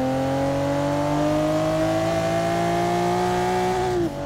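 Car engine accelerating hard, its pitch climbing steadily through one gear and then dropping at a gear change about four seconds in.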